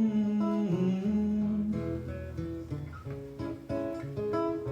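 Acoustic guitar playing a short instrumental passage of separately plucked notes and chords between sung lines of a song.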